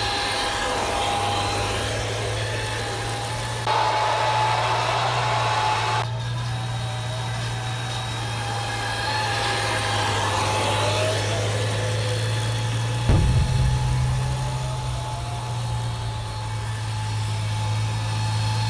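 Radio-controlled model M1 Abrams tank running through snow: a steady low engine hum with a thin higher whine above it, louder and noisier for a couple of seconds about four seconds in. A single sudden thump about 13 seconds in.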